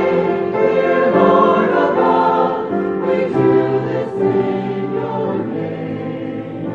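Choir singing a hymn, growing a little softer towards the end.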